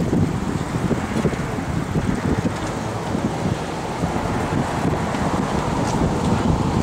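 Wind buffeting the microphone over a steady wash of street traffic.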